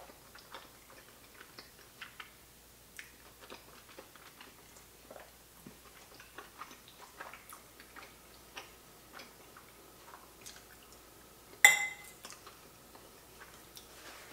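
Close-miked chewing of a mouthful of mac and cheese, a run of small wet mouth clicks and smacks. About twelve seconds in, a metal fork clinks sharply on a ceramic plate and rings briefly.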